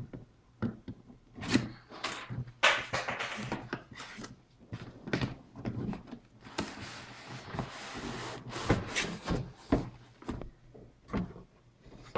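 A box being opened and its packaging handled: irregular knocks, scrapes and rubbing, with a few sharp taps and longer stretches of rubbing.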